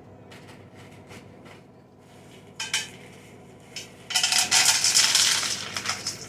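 A clinking, rattling clatter of hard objects: a short burst partway through, then a louder run of it lasting about two seconds near the end, over a faint steady hum.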